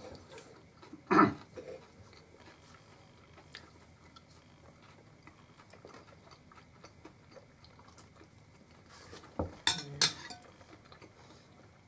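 Quiet eating sounds: metal forks tapping and scraping on china plates in a run of faint small ticks. A louder knock comes about a second in, and a few more near the end.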